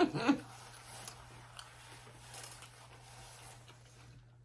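Faint chewing with a few soft, scattered mouth clicks, over a low steady hum.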